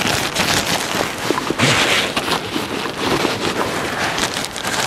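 Thin white bags crinkling and rustling in the hands as they are folded and handled, with wind buffeting the microphone.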